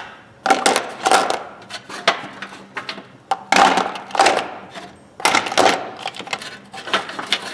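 Steel Craftsman sockets clinking against one another as they are handled and dropped, in about five bursts of rapid metallic clinks.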